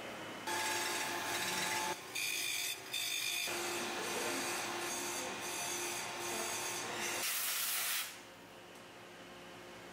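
Metalworking shop noise: a rasping, filing-like scraping of metal over a steady machine hum, with short breaks. About seven seconds in, a short, bright hiss of compressed air from an air tool cuts off abruptly, leaving a low workshop hum.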